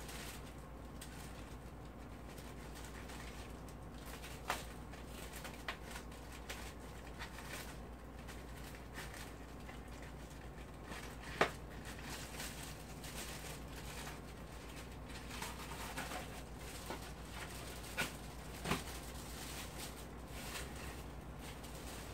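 Quiet eating and handling of styrofoam takeout containers: scattered soft clicks and taps over a steady low hum, the sharpest tap about eleven seconds in and two more close together near the end.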